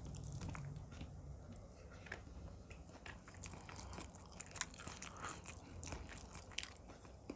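Close-miked chewing of chicken korma with rice: wet mouth smacks and sharp clicks at an irregular pace.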